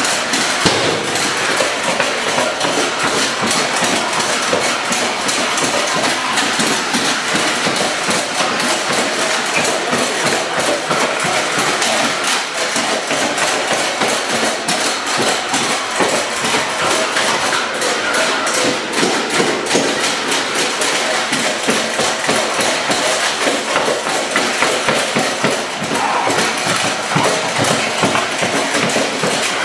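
Small combat robots fighting in a clear-walled arena: a rapid, unbroken clatter of knocks and impacts, with the robots' motors running underneath.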